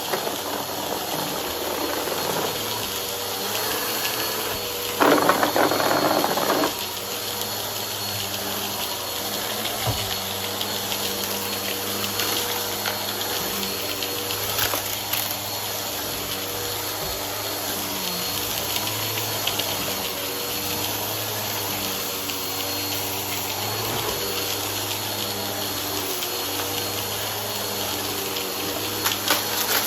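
Upright vacuum cleaner running steadily with its motor and brushroll humming, sucking up a pile of crunchy debris, with a louder rush of crunching about five seconds in that lasts under two seconds.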